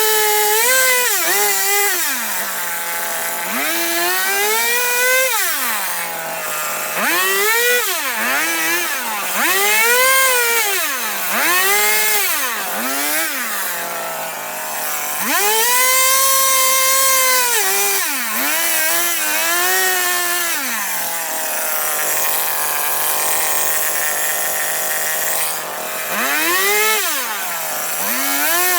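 Two-stroke chainsaw carving into wood, revving up and dropping back to idle over and over, about a dozen times. Near the middle it is held at full throttle for a couple of seconds, and later it idles steadily for several seconds before revving again.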